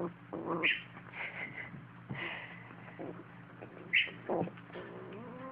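Kitten growling over its food bowl: a faint low rumble, broken by a few short sharp sounds, the loudest about four seconds in, and a wavering cry near the end.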